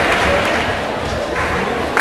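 Audience applause and crowd noise, dying down gradually, with one sharp thump right at the end.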